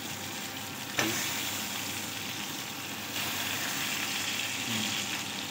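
Semolina-coated fish shallow-frying in hot oil in a pan, a steady sizzle, with a single sharp tap about a second in.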